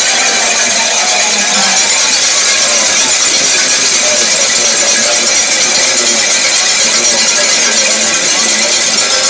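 Football stadium crowd ringing many cowbells at once: a dense, steady metallic clanging, with crowd voices mixed in underneath.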